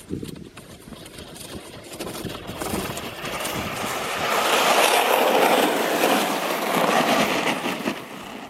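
Plastic sled sliding over packed snow: a steady scraping hiss that builds over the first few seconds and stays loud through the middle, with a few soft crunches near the start.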